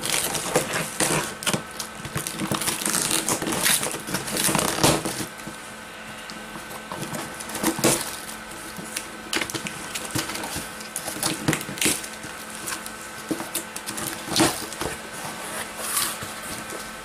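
A cardboard parcel being opened by hand: packing tape pulled and torn and cardboard flaps crackling, busiest for the first five seconds or so. After that come sparser rustles and knocks as the box, packed with foam packing peanuts, is tipped and handled.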